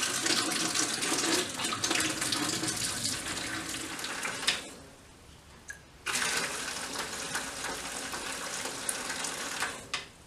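Mains water flowing out of a pressure washer gun into a plastic bucket with the motor off, bleeding the air out of the Kärcher K1700 Cube's pump and hose. The flow stops for about a second roughly five seconds in, then runs again and stops near the end.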